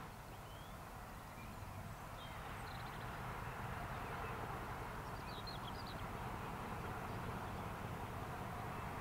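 Quiet outdoor ambience: a low, steady background rumble that slowly grows a little louder, with a few faint, short bird chirps.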